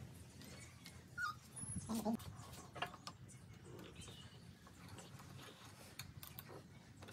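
A dog whimpering briefly a couple of times, with faint clicks and knocks around it.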